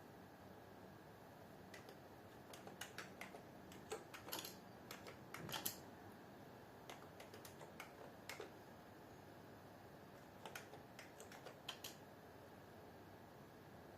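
Faint typing on a computer keyboard: irregular short bursts of keystrokes with pauses between them.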